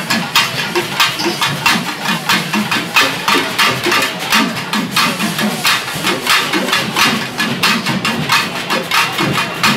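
Rope-laced barrel drums beaten in a fast, steady processional rhythm of about four strokes a second.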